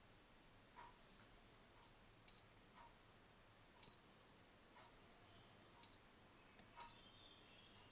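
Four short, high-pitched electronic beeps, unevenly spaced, over near silence, with a few faint soft ticks between them.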